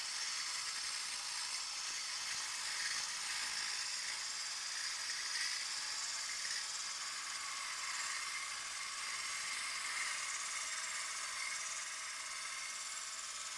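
Walk-behind diamond concrete floor grinder and its dust extractor running steadily as the grinder cuts the concrete, a constant high hiss with little low rumble. It eases slightly near the end.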